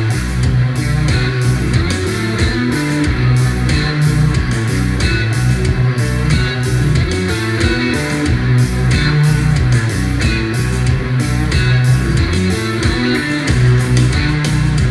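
Rock music with electric guitar and bass over a steady beat, without vocals.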